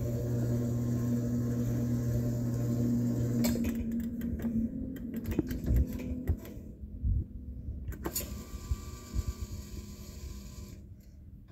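Claw machine working through a grab: its motor hums steadily for about three and a half seconds, then stops, followed by scattered clicks and knocks from the claw mechanism.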